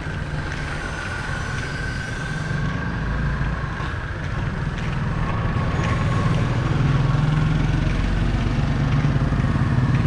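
Street traffic: motor vehicle engines running close by, growing louder about six seconds in.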